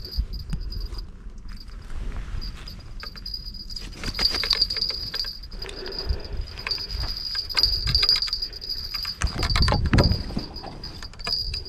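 Footsteps crunching on dry, stony ground, with rustling and knocks of clothing and handling close to a body-worn camera. A steady high-pitched whine runs underneath.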